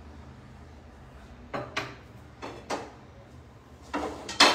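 Metal cookware being handled on a gas stovetop: about half a dozen short knocks and clatters of pans and a tava, the loudest near the end.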